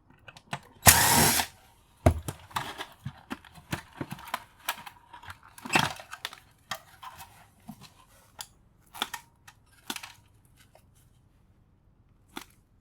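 A power drill-driver runs in one short burst about a second in, backing out a screw as a transformer is taken out of a boombox. Small clicks, knocks and clatters of screws and metal and plastic parts being handled follow, dying away near the end.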